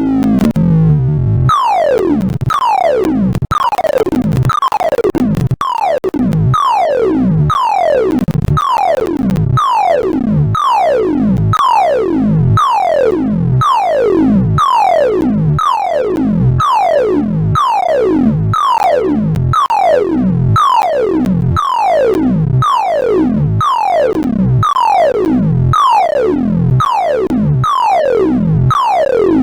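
Sorting-algorithm sonification: rapid synthesized beeps whose pitch follows the values being compared, forming falling pitch sweeps that repeat about one and a half times a second. A longer sweep runs down at the start.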